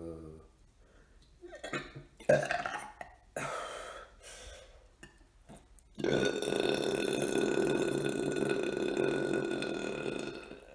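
A man's long, strained belch, rough and rasping, lasting about four seconds in the second half, after a few short mouth noises and one sharp click about two seconds in. It comes while he is overfull from eating watermelon.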